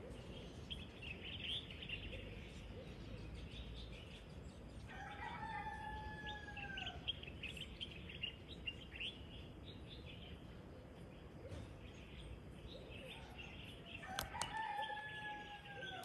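A rooster crowing twice, about five seconds in and again near the end, each crow a long call that falls in pitch as it closes. Small birds chirp throughout.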